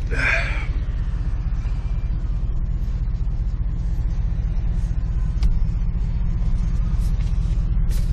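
A motor vehicle's engine running: a steady, loud low rumble. A brief higher-pitched sound comes right at the start.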